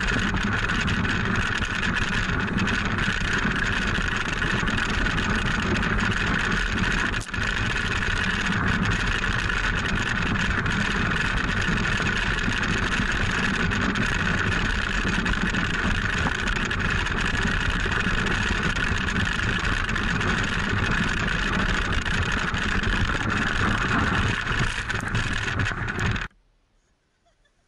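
Steady rushing noise of a wooden toboggan sliding fast down a snowy track: its runners on the snow and wind on the sled-mounted microphone. It cuts off suddenly near the end.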